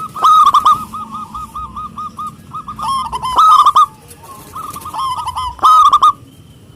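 Zebra dove (perkutut) singing: runs of quick, repeated cooing notes, with three loud phrases and softer notes between them.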